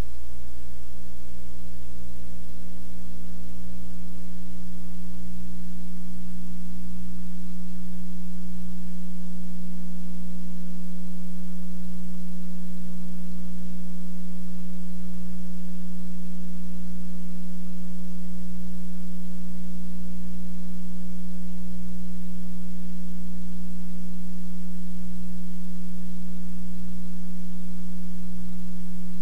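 Steady electrical hum: a constant low tone with a fainter pulsing buzz beneath it, unchanging throughout.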